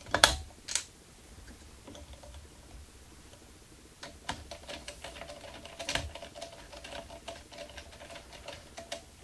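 Light metal clicks and ticks as a 1/4-20 machine screw with spacer washers is handled and turned in by hand through a sheet-metal bearing mount. A few sharper clicks come right at the start, then a run of small irregular ticks from about four seconds in.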